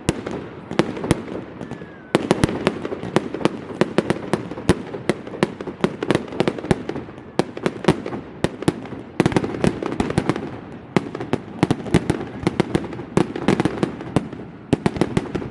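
Fireworks display: a rapid run of sharp bangs and crackles, often several a second, over a continuous rumbling background.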